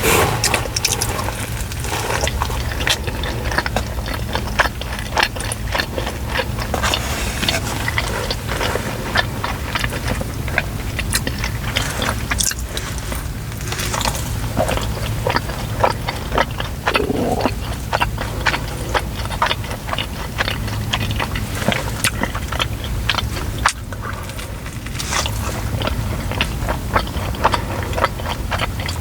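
Close-miked eating: repeated biting and chewing of food, heard as many small irregular clicks and crackles, over a steady low hum.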